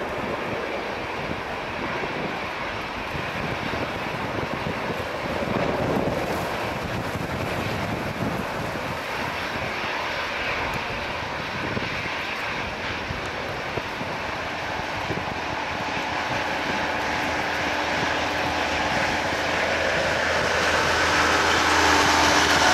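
Boeing 737-400's CFM56-3 turbofan engines at takeoff thrust as the jet rolls down the runway, lifts off and climbs away. It is a steady rushing jet noise that grows louder over the last few seconds, with a steady hum joining in during the second half.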